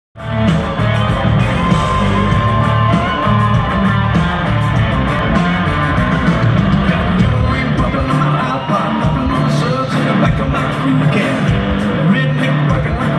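Loud live country-rock band with drums playing while a male lead singer sings into a microphone, heard from within the audience.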